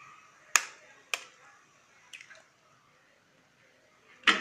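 Sharp knocks and clicks of a kitchen utensil against a cooking pan: three single taps spread over the first half, then a louder clatter near the end.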